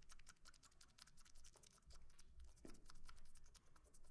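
Faint, rapid clicking made with the mouth and a hand held at the lips, several clicks a second: a person mimicking a rhythmic sound by mouth.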